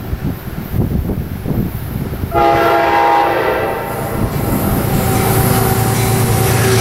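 Approaching train's air horn: a loud multi-note blast starts about two seconds in, then eases to a quieter held note. The rumble of the train builds beneath it.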